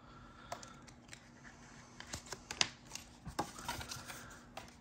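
Quiet handling of trading cards and plastic top loaders on a table: scattered light clicks and rustles, with a few sharper plastic clicks about halfway through.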